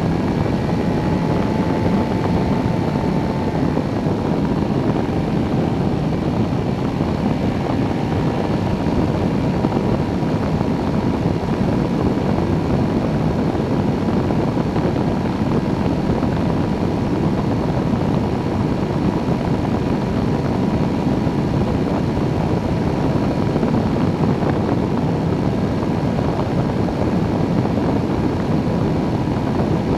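Engine and pusher propeller of a weight-shift microlight trike running steadily in cruise: a constant drone with a faint high whine, mixed with wind rushing past a wing-mounted camera.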